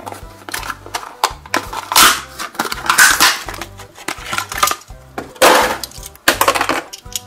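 Plastic blister packaging and its cardboard backing card crackling and tearing as a die-cast toy tractor is pulled out of its pack, with four loud crinkling bursts, over background music with a steady beat.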